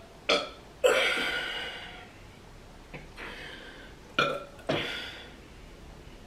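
A woman burping several times in a row, each starting suddenly and fading out; the longest, about a second in, lasts about a second, and two more come close together near the four-second mark.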